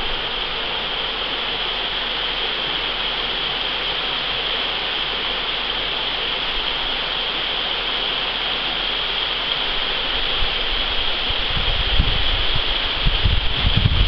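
Wissahickon Creek running in a steady, even rush of water. Low, uneven buffeting on the microphone comes in near the end.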